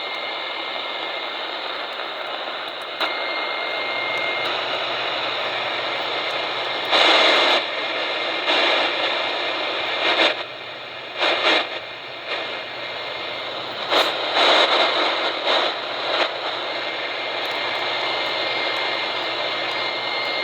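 Static hiss from a portable shortwave radio's speaker while tuned between stations. A faint steady whistle from a carrier drops in and out, and several louder bursts of noise swell up and fall away in the middle stretch.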